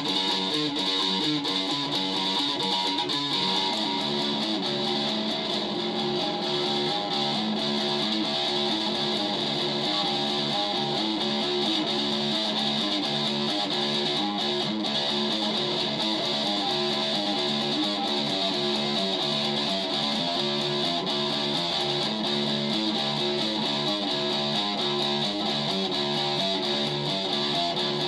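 Guitar music: a guitar playing a continuous run of changing notes at an even level, without pauses.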